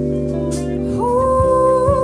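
Live band playing a slow song: sustained guitar and keyboard chords, with a woman's lead voice coming in about a second in on a long held, wavering note.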